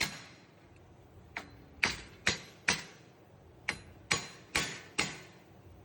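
Hammer blows on metal: one strike, then four quick strikes, a pause of about a second, and four more, each ringing briefly. They are struck while knocking the front wheel bearing loose from the steering knuckle.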